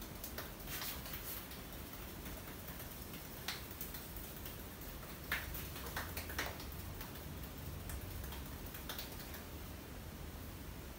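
Hands massaging a man's forehead and scalp, making scattered soft clicks and taps of skin and fingers, with a few sharper ones in the middle, over a steady faint hiss.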